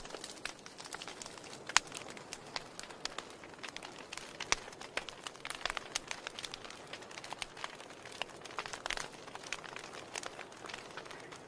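Wood fire burning in a fireplace: irregular crackling and snapping over a soft hiss, with a few sharper pops, one about two seconds in and another near the middle.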